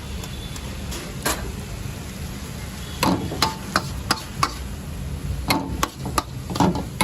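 Metal cooking utensils clanking: a series of sharp, irregular strikes, several with a brief metallic ring, over a steady low rumble of street background.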